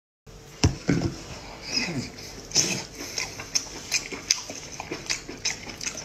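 Close-miked wet mouth sounds of eating braised octopus: a string of sharp smacks and clicks, with a brief murmured voice sound about two seconds in.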